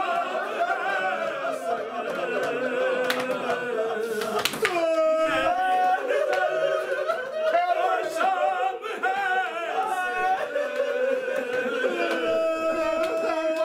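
A man singing unaccompanied in a slow, melismatic Muharram lament, a zakir's sung recitation, with long held notes around the middle and again near the end.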